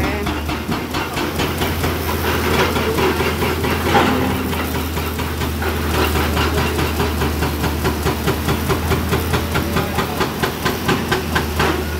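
Hydraulic excavator's diesel engine running steadily under load as it digs and swings, with repeated knocks and clatter of rock being loaded into a dump truck, coming faster and more regularly near the end.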